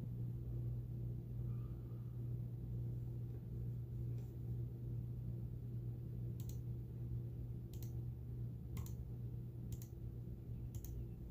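Steady low hum with five sharp clicks about a second apart in the second half.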